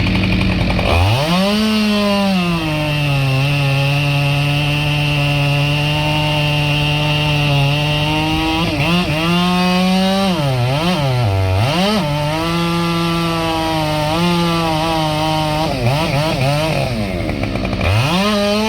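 Two-stroke chainsaw cutting wood. It revs up about a second in and holds a steady pitch through the cut, then drops and revs back up several times midway and again near the end.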